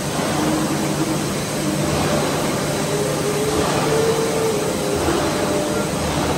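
Plastic film pelletizing line running: the belt conveyor, forced film feeder and extruder make a steady machinery noise, an even rush with a low hum underneath.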